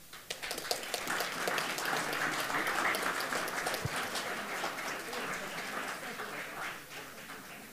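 A room of people applauding: many hands clapping together, swelling over the first few seconds and dying away near the end.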